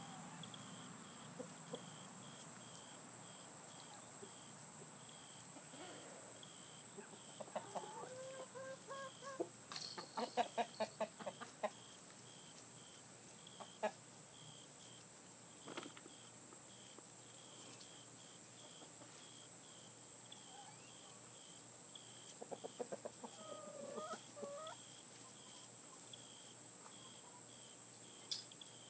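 Chickens clucking in a backyard run, with a louder string of rapid calls about ten seconds in and another bout of clucking near the three-quarter mark. A faint insect chirp repeats steadily, about one and a half times a second.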